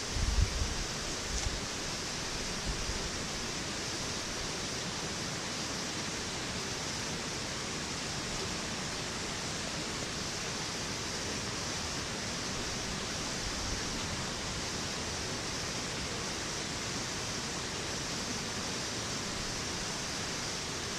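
Steady, even rushing background noise, with a few low thumps in the first second.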